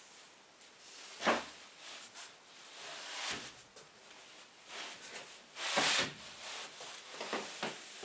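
A thin, flexible plywood subfloor sheet being bent and slid over a plywood floor: rubbing and scraping, with a sharp knock about a second in and a longer, louder scrape near the middle, then a few light knocks.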